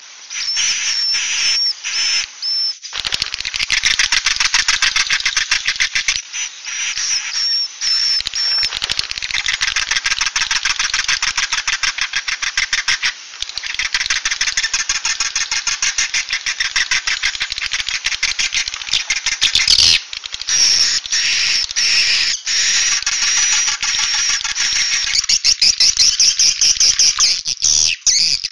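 Edible-nest swiftlet calls from a 'suara inap' lure recording, the roosting call played to draw swiftlets into a bird house and make them stay: dense, rapid chattering and clicking of many birds, with short high chirps near the start and again after about twenty seconds.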